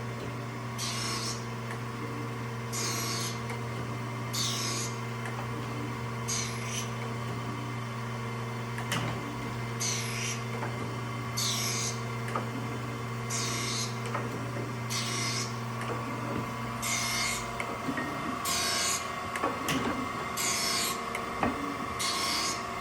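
Acer AGS-1224AHD surface grinder grinding a part on automatic, with a half-thousandth down-feed set. The spindle motor gives a steady hum, and a short hissing grind comes each time the reciprocating table carries the part under the wheel, about every two seconds.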